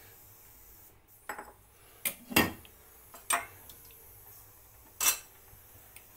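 Metal kitchenware clinking and knocking: about five separate sharp clinks of utensils against steel pots, the loudest about two and a half seconds in.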